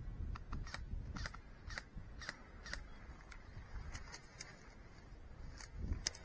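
Irregular sharp clicks and snaps, about two a second at most, over a low rumble that swells near the end.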